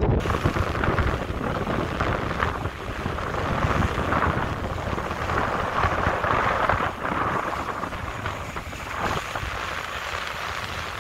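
Wind buffeting the microphone: a steady rushing noise over a low rumble.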